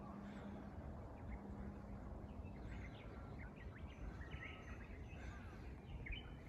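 Faint wild birds chirping: scattered short calls throughout, over a low background rumble of outdoor noise.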